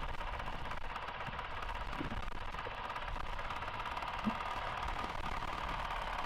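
Honda CRF450RL's single-cylinder four-stroke engine running steadily at low revs, a quick, even ticking pulse.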